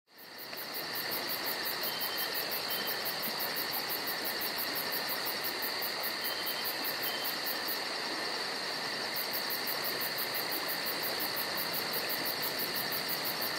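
A steady chorus of chirping insects with a rapid, even pulsing, fading in at the start, with a few faint short higher chirps now and then.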